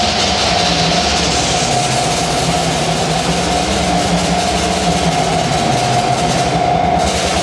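Live electronic noise music: a loud, steady wash of noise over a low drone, with one held mid-pitched tone running through it.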